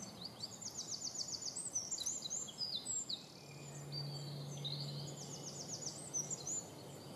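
A small songbird singing: two phrases of quick, high chirps and trills, the first right at the start and the second about five seconds in. A faint low hum sounds for about two seconds in between.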